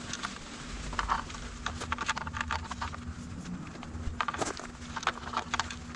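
Scattered light clicks and rattles of an e-bike's wiring and plastic connectors being handled and pulled out through the down-tube opening, in short clusters.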